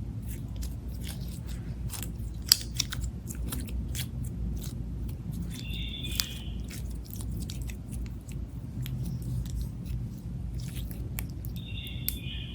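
Clear slime being worked by hand, with many small sticky clicks and pops, and two brief high squeaks, about halfway through and near the end.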